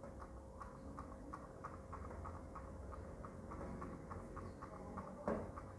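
Faint irregular clicking, a few clicks a second, over a faint steady hum, with one louder knock near the end.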